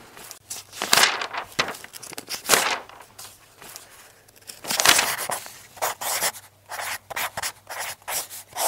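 Marker writing on a board: a run of short, scratchy strokes in irregular groups.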